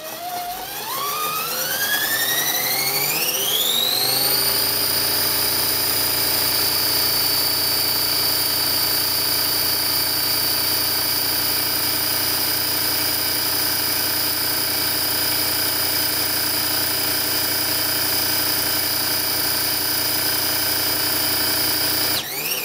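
Pfaff 230 sewing machine driven by a 24 V 895 DC motor through an HTD 3M timing belt, speeding up with a rising whine over about four seconds, then running steadily at top speed, about 1775 rpm, before winding down near the end. The whine comes from the motor and the timing-belt teeth meshing with the pulleys.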